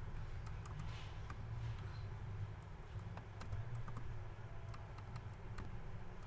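Scattered keystrokes on a computer keyboard: a few irregular clicks over a low, steady hum.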